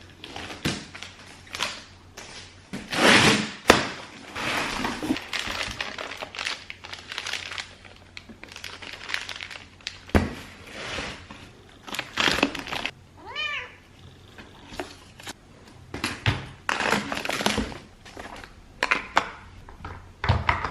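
A pet cat meowing once, a short pitched call about two-thirds of the way through, among irregular knocks and rustling from household handling.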